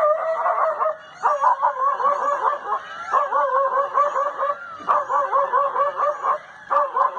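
An animal giving rapid runs of short, high yelping calls, several a second, in bursts broken by brief pauses.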